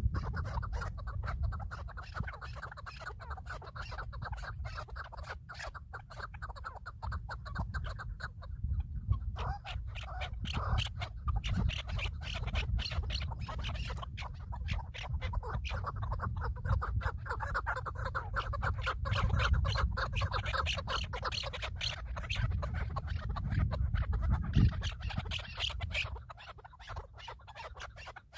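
Birds calling with rapid, harsh, chattering notes, over a low rumble that drops away near the end.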